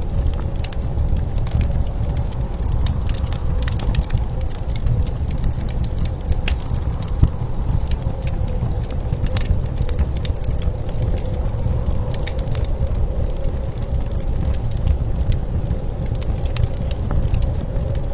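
Wood fire crackling, with scattered sharp pops throughout, over a steady low rumble of blizzard wind.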